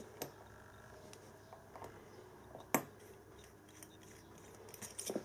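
Quiet handling sounds of a brass scribe being turned in the fingers on a wooden workbench, with a few faint clicks and one sharper tap about halfway through.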